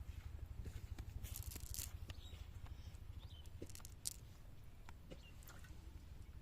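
Scattered rustling and light clicks over a steady low rumble, with a sharper click about four seconds in.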